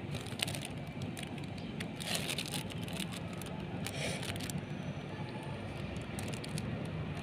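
Steady outdoor background noise with a low hum, scattered faint clicks, and brief hissy swells about two and four seconds in.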